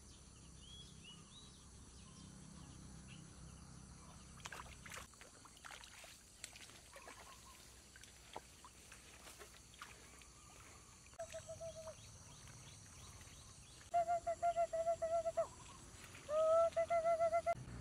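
Outdoor ambience with a few faint high chirps and clicks, then an animal call repeated three times in the second half: a loud, rapidly pulsing note at one steady pitch, each call about one to two seconds long.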